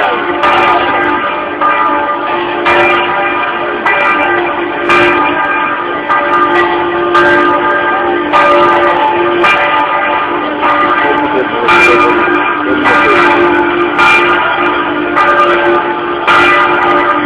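Church bell swung a slancio, its clapper striking about once a second while the bell's ringing tone carries on between strokes.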